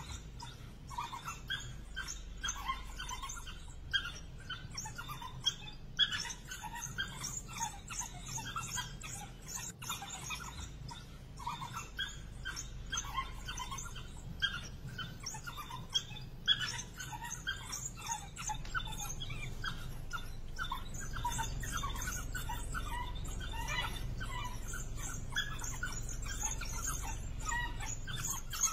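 African wild dogs twittering: a dense run of short, high chirping calls from the pack as it harries a sable antelope. A low steady rumble runs underneath and grows louder in the second half.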